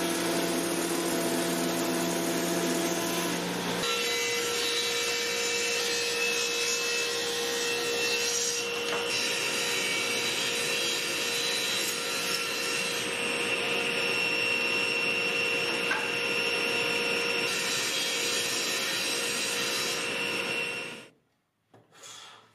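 Power woodworking machines running and cutting cherry boards: a Jet thickness planer, then a table saw with a steady whine. The machine noise stops abruptly near the end, followed by a few quiet hand-plane strokes on the board.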